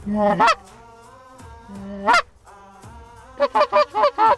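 Goose honking: a held low moan that breaks sharply upward into a loud honk, twice, then a quick run of about five short clucks near the end.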